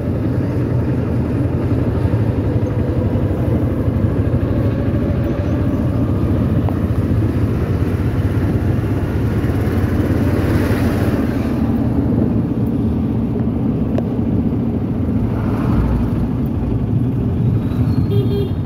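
Auto-rickshaw's small engine running steadily under way, heard from inside the passenger compartment as a constant low drone with road noise, and a brief rushing swell about ten seconds in.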